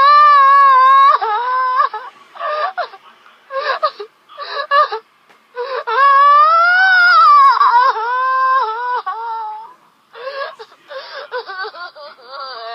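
A woman crying loudly with high-pitched wailing: a long wail at the start and a longer one about six seconds in that rises and then falls in pitch, with short broken sobs and gasps between and after them.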